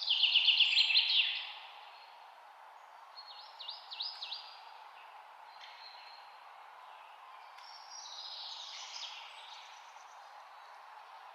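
Wild songbirds singing: a loud, rapid trilled phrase right at the start, a short run of quick sweeping notes about four seconds in, and another song phrase around eight to nine seconds, over steady background noise.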